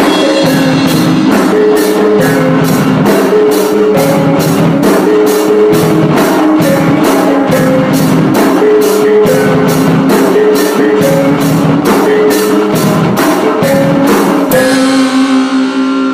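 Live band music with a steady, fast drum beat under guitars and a held melody line. Near the end the drums stop and a sustained chord rings on.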